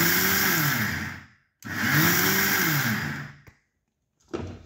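Electric mixer grinder pulsed twice, each run just under two seconds, its motor pitch rising as it spins up and falling as it coasts down: soaked pearl millet is being ground in short bursts so that it stays coarse, not floury. A short knock and clatter near the end.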